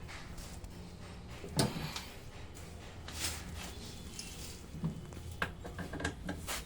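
Scattered knocks and clatter of parts being handled during the reassembly of a top-load washing machine's gearbox assembly, with one louder knock about a second and a half in and a quick run of small knocks near the end, over a low steady hum.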